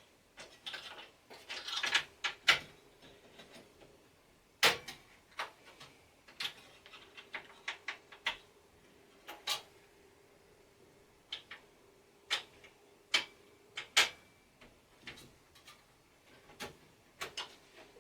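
Irregular sharp metallic clicks and light knocks from hex keys undoing the screws of a desktop PC's CPU heatsink cover, and from the cooler parts being handled and set down.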